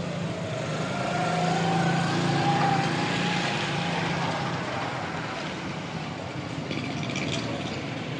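A motor vehicle's engine running nearby amid street noise, its pitch and loudness rising a little over the first few seconds and then easing, over a steady hiss.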